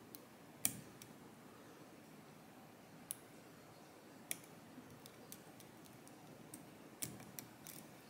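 Faint, irregular metallic clicks and ticks from a hook pick and tension wrench working the pins inside a Medeco M4 lock cylinder. There are about ten small clicks, the sharpest just under a second in and a few close together near the end.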